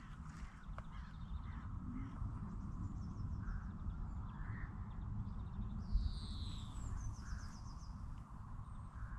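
Crows cawing several times, with small birds chirping high above, over a steady low rumble of wind on the microphone. A high falling whistle comes about six seconds in.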